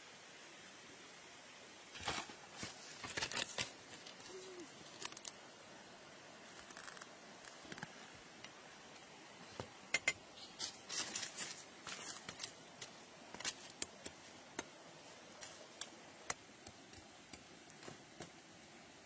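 A large knife blade cutting into a green plant stalk, with dry papery sheaths crackling and tearing. There are bunches of short, sharp cuts and crackles about two seconds in and again around ten seconds, with single strikes scattered between and after.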